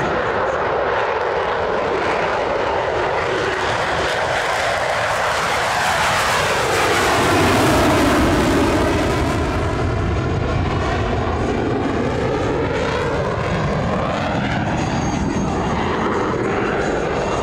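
Jet engine noise of Blue Angels Boeing F/A-18 Super Hornets, loudest about eight seconds in as one passes low overhead. A swishing sweep in tone falls toward the pass and rises again after it.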